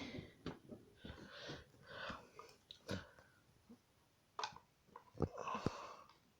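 Faint, scattered clicks and taps of plastic wrestling action figures being handled, with a few soft breathy rustles, the longest near the end.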